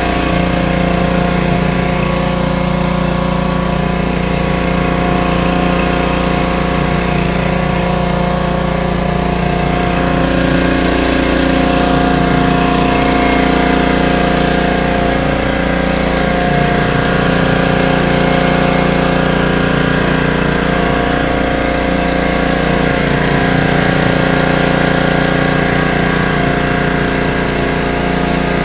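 A gas pressure washer's small 212cc engine running steadily under load, with the hiss of high-pressure water from a spinning dual-jet surface cleaner scrubbing concrete.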